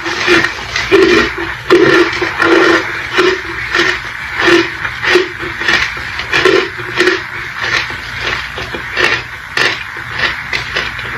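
Close-up crunching of chalk and clay: an irregular run of crisp crunches and crackles, a few louder ones each second among many small ones.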